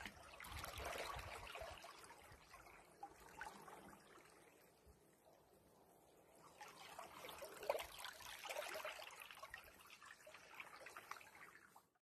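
Seawater washing in among shoreline boulders in two surges: the first swells from about half a second in and fades by about four seconds, and the second builds from about seven seconds in. The sound cuts off just before the end.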